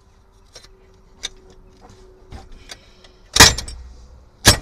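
Metal hydraulic jack being handled and knocked about: scattered light clicks, then two loud sharp metallic clanks near the end, about a second apart.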